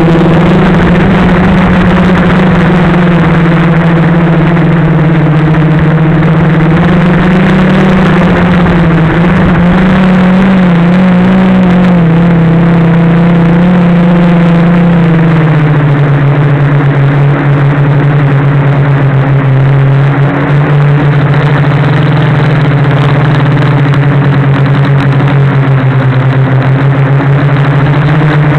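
Drone motors and propellers running loud and steady, heard on the aircraft's own camera mic as a hum with many overtones. The pitch steps down about halfway through and holds lower.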